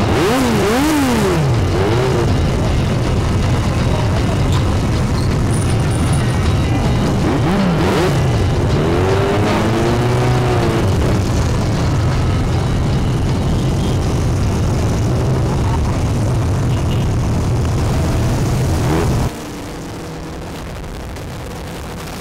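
A pack of motorcycle engines running together with a steady low rumble, throttles revved several times so that the engine notes sweep up and down. About 19 seconds in the sound cuts abruptly to a quieter, steady engine drone of the bikes riding on.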